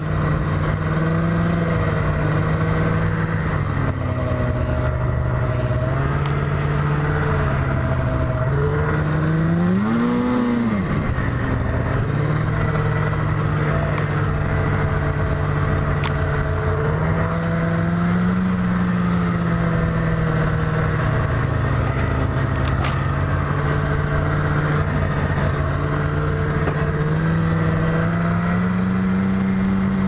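Yamaha snowmobile engine running under way, its pitch rising and falling with the throttle: a quick rev up and back down about ten seconds in, and a slow climb near the end.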